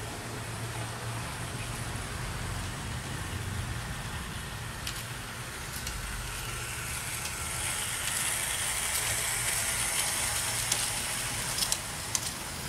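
G-scale model train running along an elevated garden track, a steady low hum with wheel rolling noise that grows louder and brighter about halfway through as it draws closer, with a few sharp clicks near the end.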